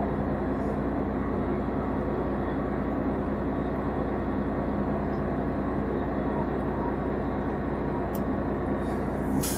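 Steady low drone of a fishing boat's engine running, an even rumble with a constant low hum.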